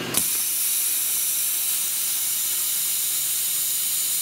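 Rolair JC10 air compressor's motor cuts off just after the start, and air then hisses out steadily and loudly from the head. The owner takes the hiss for a leak at the new solenoid unloader valve.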